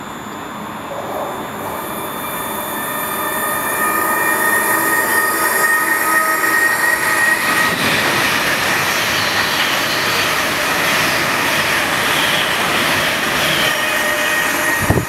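High-speed express passenger train passing through the station at speed without stopping. The rush of wheels and air builds over the first four seconds, then holds steady with high thin tones as the carriages go by.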